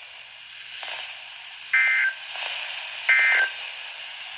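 NOAA Weather Radio end-of-message SAME data bursts: short two-tone digital squawks repeated about every 1.4 seconds over radio hiss, two in full and a third starting at the very end. They mark the close of the warning broadcast.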